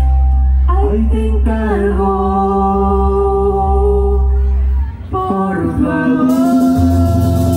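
Live band music amplified through stage PA speakers: a singer holds two long notes over a sustained bass. The bass drops out about five seconds in and comes back near the end.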